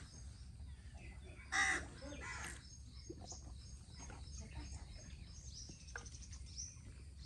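A crow cawing, with one loud caw about one and a half seconds in and a fainter one just after. Small birds chirp in the background over a steady low rumble of outdoor noise.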